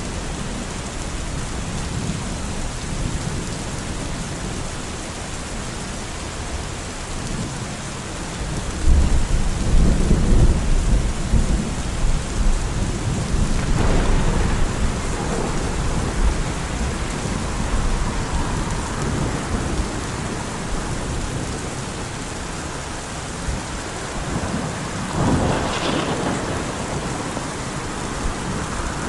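Steady rain falling, with thunder: a long low rumble of thunder about a third of the way in, and a second, shorter thunderclap near the end.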